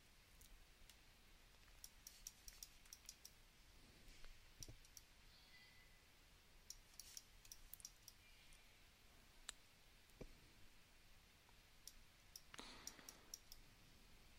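Faint, scattered clicks of a computer mouse and keyboard in near silence, some coming in quick clusters of several.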